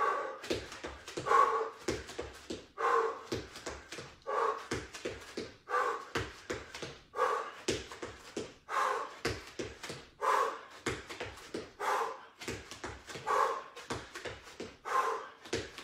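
Feet hopping and landing on an exercise mat over a wooden floor, with a short vocal sound repeated about every second and a half that is the loudest thing heard.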